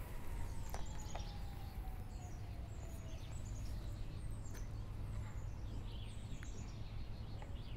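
Outdoor ambience: many short, high bird chirps repeating throughout over a steady low background rumble.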